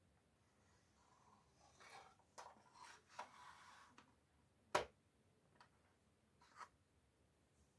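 Faint handling of a thin plywood toy box: a wooden drawer scraping as it slides out, then one sharp wooden knock a little past halfway, followed by two light taps as a puzzle board is lifted out.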